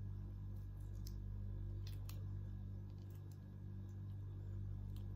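Eating sounds: scattered soft clicks and smacks of chewing and handling shrimp by hand, over a steady low hum.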